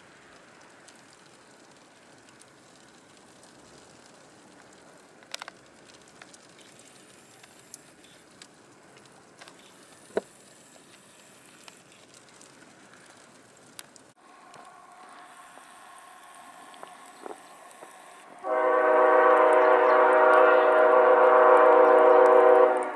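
Freight locomotive air horn sounding one long steady blast of about four seconds near the end. Before it there is only a faint steady background with a few small clicks.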